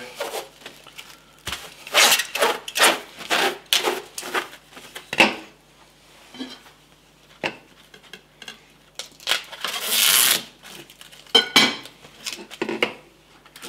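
Plastic cling film being pulled from its roll and smoothed over raw meat on a wooden cutting board: irregular crinkling and rustling, with one longer rasping sweep about ten seconds in.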